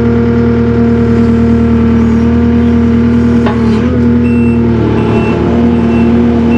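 Takeuchi TL240 skid steer's diesel engine running steadily under way, its pitch dipping briefly about four seconds in. From then on a high reversing alarm beeps a little more than once a second.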